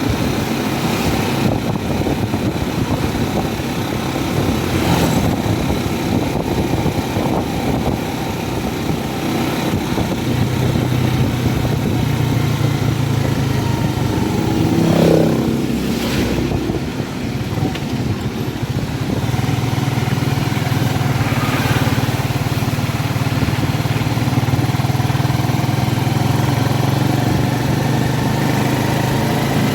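A vehicle's engine running steadily with road noise while driving, with a brief change in the engine note about halfway through.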